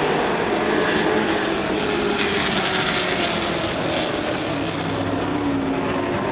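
A pack of dirt-track race pickup trucks running hard around the oval, their engines blending into one steady drone whose pitch drifts up and down as they pass.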